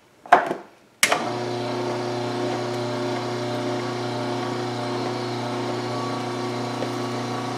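A short knock, then an electric horizontal auger juicer switched on about a second in, its motor running with a steady even hum while pineapple cores are fed into its hopper.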